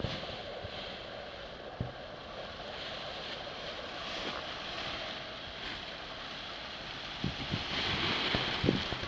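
Steady wind blowing over the microphone on an open slope, with a few low thumps near the end.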